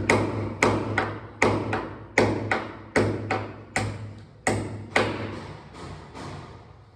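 Hammer driving a 3-inch concrete nail into a hard wall: a steady run of sharp blows, about two to three a second, growing fainter and stopping shortly before the end.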